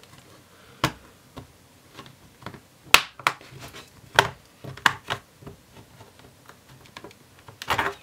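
Plastic clips of an HP 15 laptop's base snapping loose as a plastic pry tool is worked along the seam between base and palm rest: a string of sharp, irregular clicks, the loudest about three seconds in, with a short cluster of clicks just before the end.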